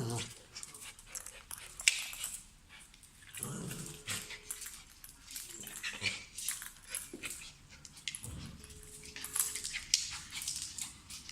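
A worked-up dog making short, irregular growls and whimpers.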